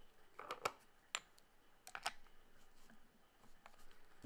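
A few light clicks as an adjustable spanner and an old brass gas cock are handled, in the first half.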